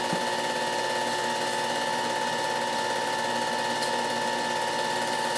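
Film projector running: a steady mechanical whirring clatter with a constant hum, unchanging throughout.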